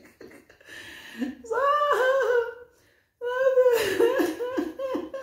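A woman's voice making two drawn-out, wordless sounds that waver in pitch, with a short silent gap between; the second is the longer.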